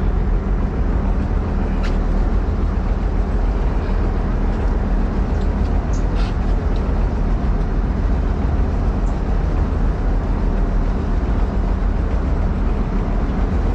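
Charter fishing boat's engine running steadily with a low, even drone, with a few faint ticks over it.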